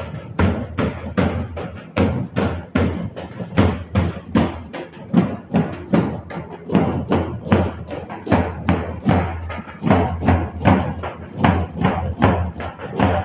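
Large double-headed dhol drums beaten in a fast, steady dance rhythm, about three strokes a second.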